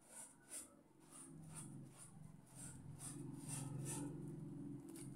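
A person chewing a mouthful of sliced bread and lettuce, with soft moist crunches about twice a second. A low steady hum comes in about a second in.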